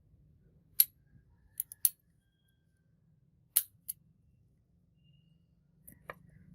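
A handful of short, sharp clicks and snaps at uneven intervals, loudest about a second in and again about three and a half seconds in.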